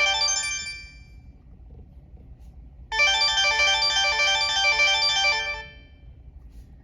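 LG VX6000 cell phone ringtone playing: a short phrase of quick pitched notes that dies away about a second in, then sounds again about three seconds in and fades out some two and a half seconds later.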